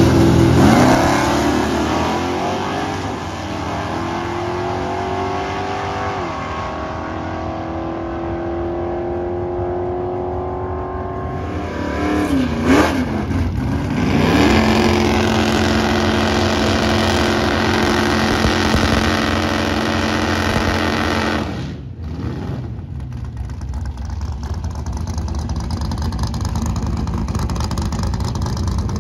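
Drag race cars' engines: one launches hard off the line, its pitch sweeping up and then falling and fading as it pulls away down the strip. After that, other race cars run with a steady engine note, idling and revving at the starting line.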